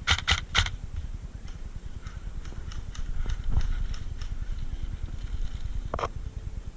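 Airsoft gun firing four quick, sharp shots in the first half-second, with one more shot about six seconds in. Between the shots there is a constant low thudding and scuffing of a player moving with gear.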